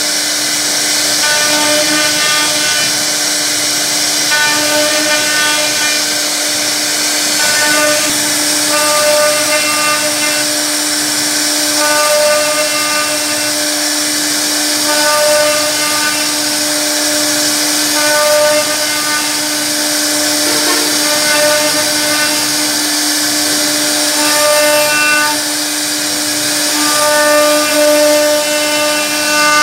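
CNC router spindle running with a steady whine while its bit carves a relief pattern into a wood panel, with a cutting hiss over it. A louder, richer tone swells for about a second every three seconds or so as the bit works through the wood.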